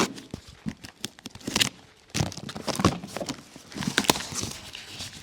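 A large cardboard box being opened and handled: irregular rustling and crinkling with scattered knocks.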